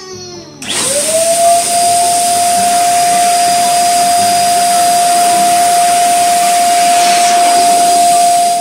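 Twin-nozzle electric balloon pump switching on about half a second in, spinning up quickly to a steady whine with a hiss of rushing air as it inflates a latex balloon, then cutting off at the end.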